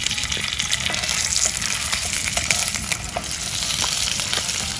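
Large lamb chops sizzling and crackling as they fry in a hot pan: a steady hiss with a scatter of small pops.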